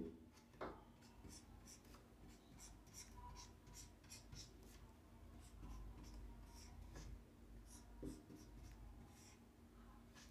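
Faint squeak and scratch of a marker pen drawing short strokes on a whiteboard, in a long uneven series.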